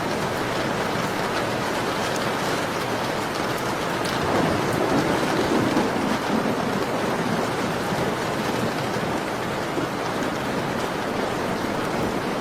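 Steady rain falling on a surface in a continuous hiss of drops. It swells louder and fuller for a couple of seconds about four seconds in.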